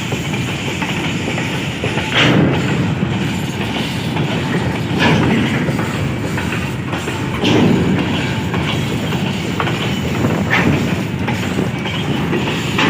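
A goods train rolling slowly past with a steady rumble, its wheels knocking over rail joints about four times, every two to three seconds.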